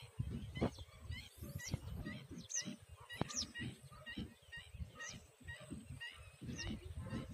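Birds calling: a steady stream of short chirping calls, several a second, over a low uneven rumbling.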